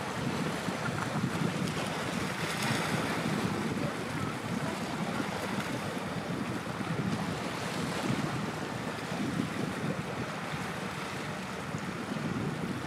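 Steady wind and waterside noise with a low rumble underneath: wind on the microphone and waves, with no distinct events.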